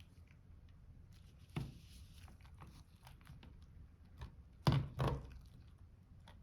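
Handling noise from a plastic game controller and its glued rubber grip being worked by gloved hands: light clicks and taps, a sharp knock about a second and a half in, and two louder knocks close together about five seconds in.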